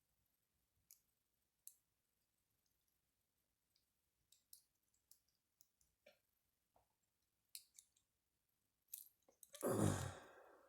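Small, faint metallic clicks and taps from the parts of a pin-tumbler lock being handled during disassembly, then one louder knock with a short rustle near the end.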